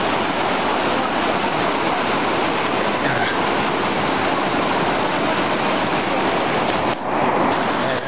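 Fast mountain creek rushing over rocks close by: a steady loud roar of whitewater, dipping briefly about seven seconds in.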